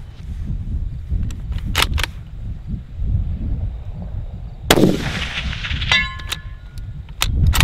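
A single shot from a .308 bolt-action Ruger Precision Rifle about five seconds in, followed about a second later by a short metallic ring from the steel target being hit. Sharp metallic clacks of the bolt being worked come before the shot and again near the end, as the rifle feeds rounds from a Magpul D50 drum magazine.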